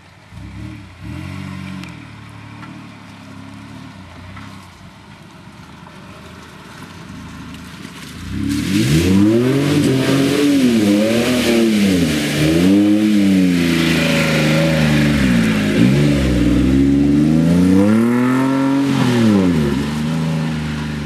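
Off-road 4x4 truck's engine at low revs, then from about eight seconds in revving hard, its pitch rising and falling again and again as the tyres churn up a steep muddy climb; the revs drop near the end.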